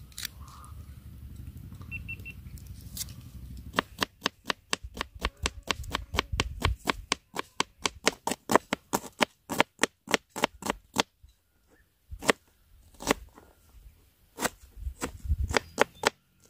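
Knife slicing red onion against a plastic cutting board: a quick run of sharp taps, about three or four a second, starting a few seconds in, then slowing to a few scattered taps in the second half.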